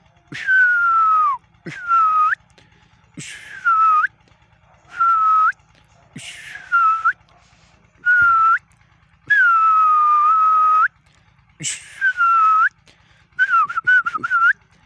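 A person whistling a string of about ten short notes with gaps between them. Each note slides down in pitch and flicks up at the end, and a quick warbling run comes near the end.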